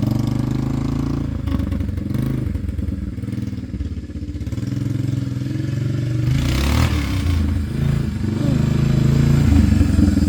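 Honda FourTrax 300 ATV engine running at low revs, with a short burst of clattering noise about six seconds in and the engine getting louder toward the end.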